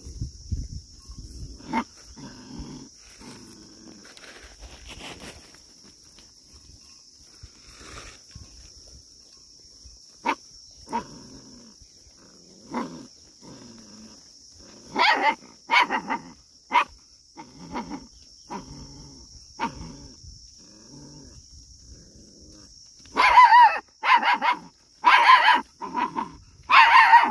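Scared puppy barking at a flock of goats: soft scattered yaps at first, a few sharper yips midway, then a quick run of about five loud barks near the end.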